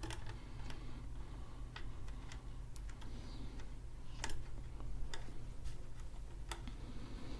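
Scattered small clicks and taps as a small screwdriver and the metal drive enclosure are handled during reassembly, irregularly spaced, over a low steady hum.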